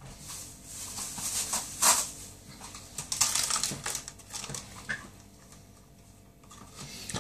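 Kitchen handling noises: rustling and light clicks and knocks, the sharpest knock about two seconds in.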